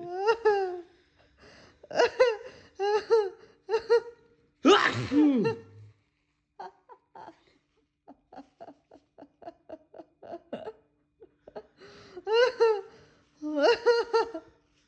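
A man laughing in repeated bursts, with a louder, harsher burst about five seconds in, then a stretch of quick, quieter chuckles, and more hearty laughter near the end.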